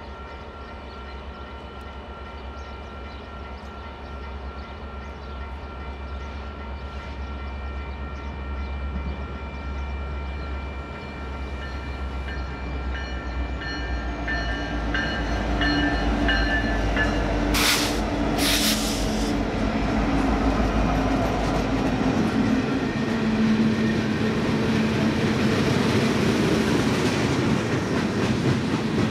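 A locomotive idles with a low rumble and a steady whine. From about halfway, a BNSF freight train's diesel locomotives come up loud alongside, with two short loud hisses a second apart. Its freight cars then roll past with clacking wheels.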